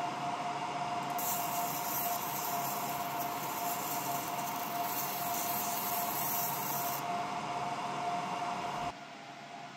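ComMarker Omni 1 UV galvo laser engraver running a marking job: a steady machine hum with a constant whine, plus a high hiss from about one second in to about seven seconds while the laser marks. Near the end the level drops, leaving a quieter hum.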